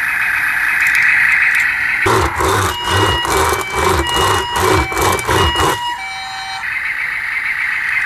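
Japanese-style two-tone ambulance siren sounding for about four seconds in the middle, its two pitches switching back and forth about every third of a second. Before and after it there is a steady hiss.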